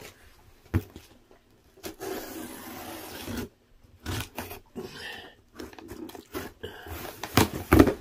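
Packing tape being slit and torn off a cardboard shipping box, with scraping and rubbing of the cardboard, loudest in a few sharp rips near the end.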